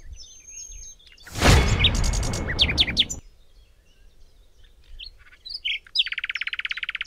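Small birds chirping and whistling throughout, with a fast, even trill near the end. About a second in, a loud rushing noise covers them for about two seconds.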